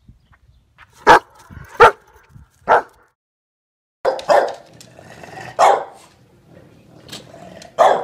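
A German Shepherd barking three times, loud and sharp. After a second of silence, a bulldog barks several gruff barks.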